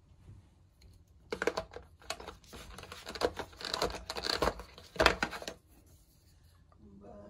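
Crinkling and rustling of packaging, with small clicks and knocks, as skincare jars and tubes are handled in a cardboard gift box. The handling noise starts about a second in and lasts about four seconds.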